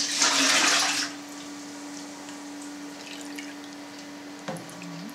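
Whey poured from a plastic ladle into a metal pot, a splashing pour lasting about a second at the start. After it come quieter sounds of the ladle dipping into whey in a cheese vat, over a steady low hum.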